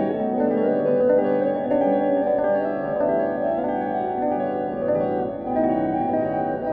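Music played on a piano-like keyboard: many sustained, overlapping notes in the middle range, with no drums.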